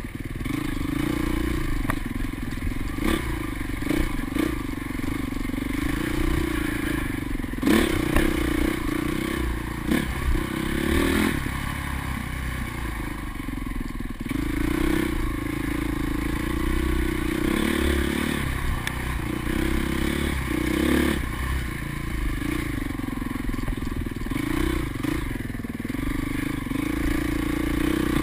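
A 2005 Honda CRF450 dirt bike's single-cylinder four-stroke engine running as it is ridden, its pitch rising and falling again and again with the throttle. Sharp knocks and rattles from the bike jolting over the rough trail come through now and then.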